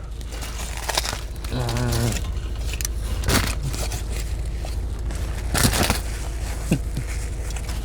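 Someone eating a steak and cheese grinder sandwich: wrapper crinkling and crackling and chewing noises, with a short hummed "mm" about two seconds in, over a steady low hum.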